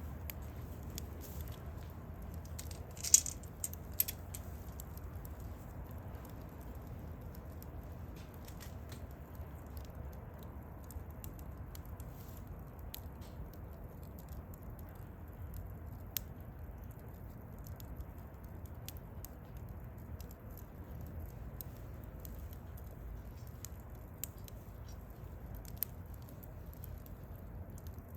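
Wood campfire crackling, with scattered sharp pops and snaps over a low steady rumble; the loudest snap comes about three seconds in.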